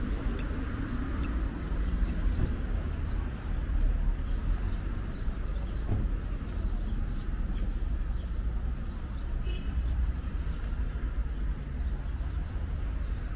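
City street ambience: a steady rumble of road traffic, with short bird chirps over it and a brief high tone a little past two-thirds of the way through.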